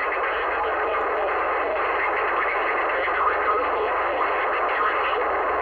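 CB radio receiver static heard through the radio's speaker: a steady, loud hiss with garbled, overlapping signals mixed in, cut to a narrow band. It cuts off abruptly at the very end.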